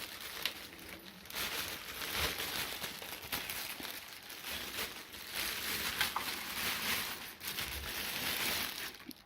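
Plastic bag crinkling and rustling in uneven bursts as the upright vacuum cleaner wrapped in it is pulled out of its box, with a few small clicks.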